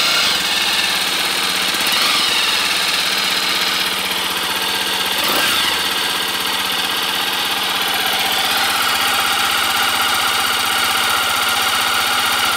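Yamaha Serow 250 FI's air-cooled single-cylinder four-stroke engine idling steadily through its stock muffler, shortly after a one-kick cold start on a freezing morning and running smoothly.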